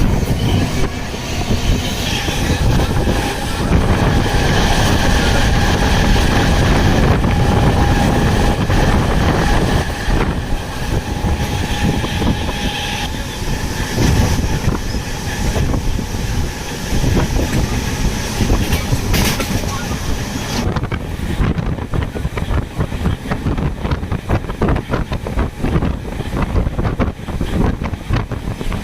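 Train running on the rails: a continuous loud rumble with clickety-clack of the wheels, and a faint steady whine in the first half.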